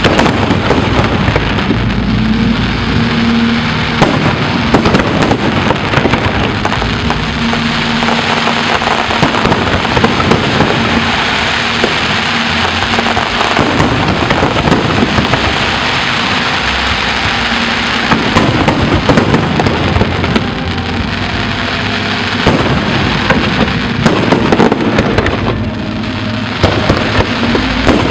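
Fireworks display: a dense, continuous crackle of many shells bursting, with sharp bangs scattered throughout.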